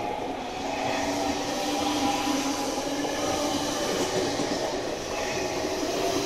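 JR 383 series electric train pulling out, its cars running past close by with a steady electric motor hum over wheel and running noise; the hum climbs slowly in pitch as the train gathers speed.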